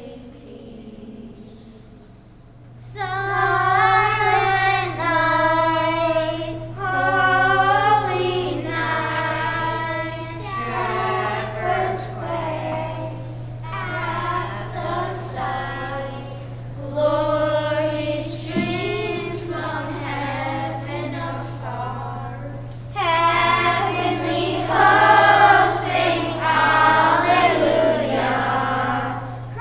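Children's choir singing a song in phrases, soft at first and coming in much louder about three seconds in, over a steady low hum.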